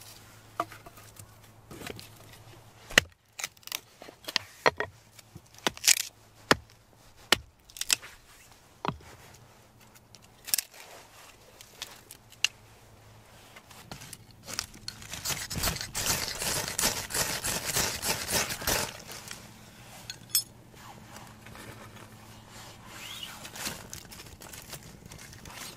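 Split firewood knocking and clattering as the pieces are laid into a metal fire pit, a string of sharp wooden knocks. About fourteen seconds in, a dense scraping hiss lasts some five seconds while the kindling is being lit.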